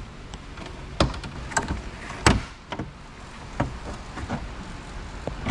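Car interior trim panels being worked loose by hand: a series of separate sharp clicks and knocks, about half a dozen, the loudest a little past two seconds in.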